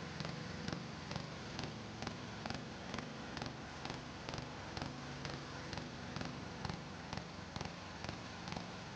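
Log splitter running steadily with a low hum, with a regular sharp tick about twice a second.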